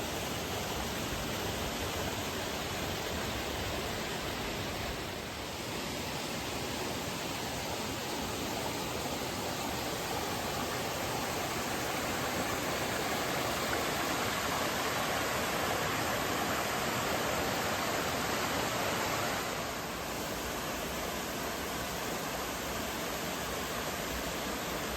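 Rushing water of the Rose River, a steady rush that grows a little louder through the middle and drops back slightly near the end.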